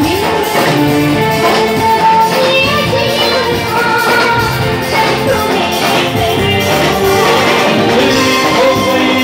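Live amplified music: a woman singing a melody into a microphone over band accompaniment through a PA system.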